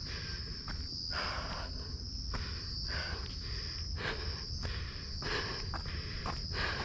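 Footsteps crunching along a path about once a second, over steady high-pitched cricket chirring.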